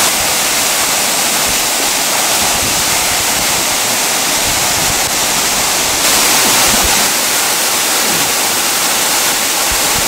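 Waterfall pouring into a rock plunge pool: a steady, loud rush of falling water that swells slightly about six seconds in.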